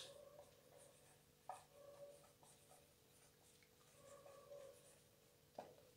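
Faint scratching and squeaking of a dry-erase marker writing on a whiteboard, with two sharper ticks of the marker tip, about a second and a half in and near the end.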